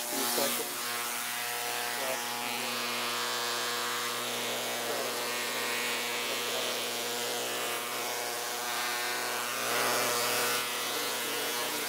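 Ultrasonic cleaner running with a carburetor soaking in its degreaser bath: a steady electric buzz under a fizzing hiss, a little louder about ten seconds in.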